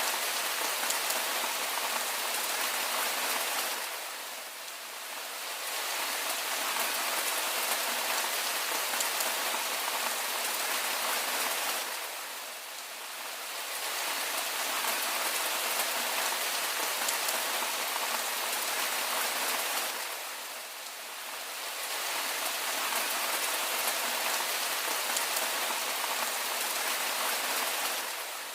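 Steady rain, an even hiss with no single drops standing out. It dips briefly and swells back about every eight seconds.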